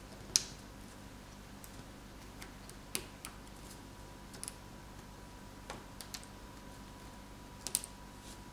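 Sparse light clicks and taps, a second or two apart with a double click near the end, from a small pry tool and a plastic side piece being pressed into place in a smartphone's open frame.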